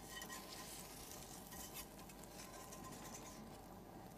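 An omelette sizzling faintly in a frying pan over a gas flame.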